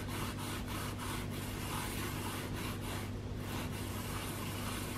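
Damp sponge rubbing lightly back and forth over acrylic-painted plastic wicker in short repeated strokes, a soft scrub test of whether the paint holds.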